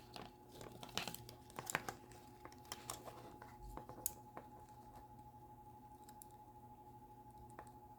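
Light rustling and scattered small clicks of high chair harness straps and a plastic buckle being handled and threaded, mostly in the first four seconds or so, over a faint steady hum.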